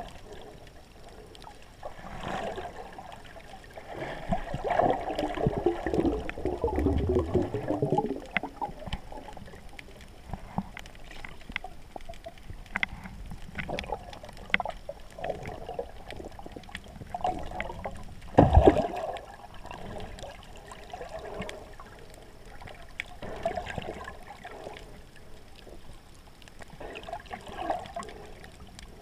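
Underwater water noise heard through a GoPro camera's housing: muffled gurgling and rushing in bursts, strongest in the first quarter, with scattered faint clicks and one hard thump about two-thirds of the way through.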